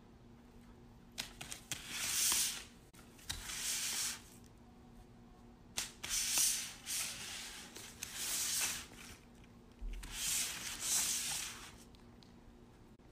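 Repeated hissing: five breathy bursts of a second or two each, some starting with a sharp click.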